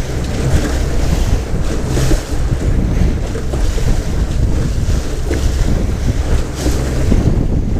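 Boat motor running steadily at low speed, with wind buffeting the microphone and waves splashing.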